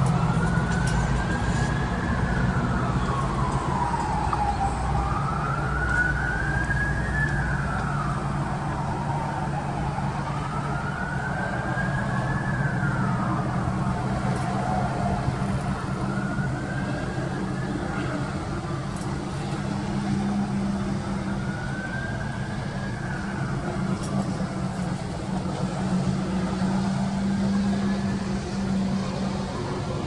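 An emergency vehicle's siren wailing in slow rises and falls, about one cycle every five seconds, growing fainter toward the end, over a steady low rumble of road traffic.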